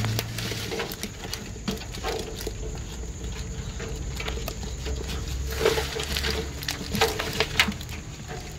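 Live climbing perch flapping and splashing in a crowded basin, wet slaps and patters as a hand sorts through them, with a few sharper slaps in the second half.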